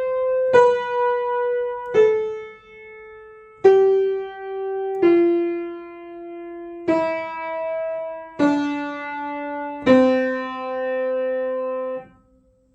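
Piano playing single notes one at a time in a slow descending scale, a new note about every one and a half seconds, stepping down to middle C, which is held and then released about twelve seconds in. This is the return half of a beginner's finger-crossing exercise.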